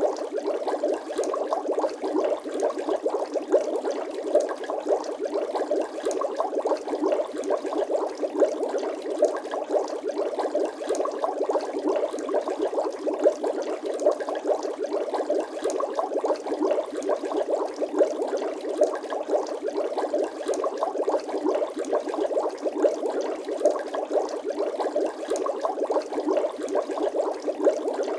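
Bubbling water sound effect: a steady, dense stream of small bubble pops.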